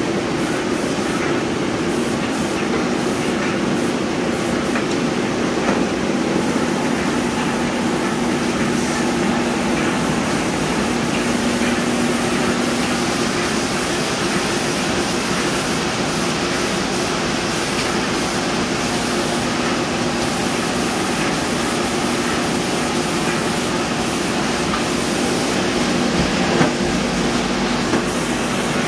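Tritech airless paint sprayer running continuously: a steady motor hum under the hiss of the spray gun atomising the coating.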